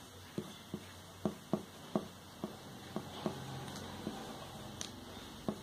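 Marker pen writing on a paper sheet: the tip strikes the surface in short, sharp, irregular taps, about a dozen, as letters are written stroke by stroke.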